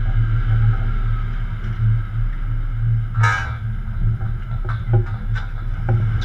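Service rig's engine running with a steady low drone, with a brief hiss about three seconds in and a few light knocks near the end.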